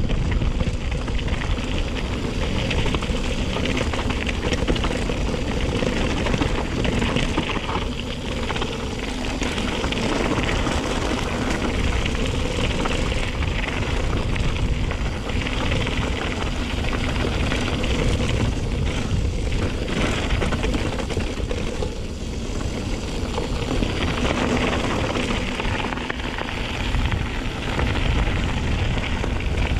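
Steady rush of wind and tyre rumble while a mountain bike is ridden along a trail, heard through a chest-mounted action camera's microphone, swelling and easing irregularly with speed.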